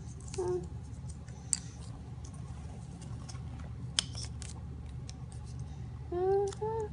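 Small clicks and taps of cardboard jigsaw puzzle pieces being handled and pressed into place, sharpest about a second and a half in and again about four seconds in. Someone hums briefly at the start and again near the end.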